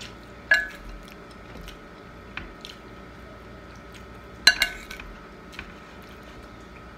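Eating sounds close to the microphone: chewing, with a metal spoon clinking sharply against a bowl twice, about half a second in and again about four and a half seconds in, plus a few light taps between.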